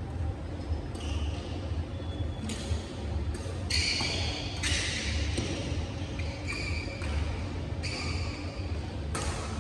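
Badminton rally: rackets striking the shuttlecock with sharp smacks about once a second, mixed with short squeaks of shoes on the court floor. A steady low hum runs underneath.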